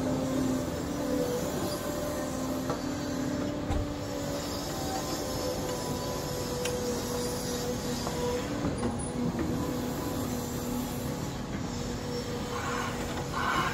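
Cat tracked excavator working: diesel engine and hydraulics running steadily, with a held whining hum as the boom and bucket move. A few short higher-pitched pulses come in near the end.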